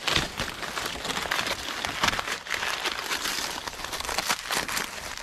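Dry, dead corn leaves and husks crinkling and crackling as a hand pushes through the stalks and pulls at them to pick an ear of corn, a dense run of small irregular crackles.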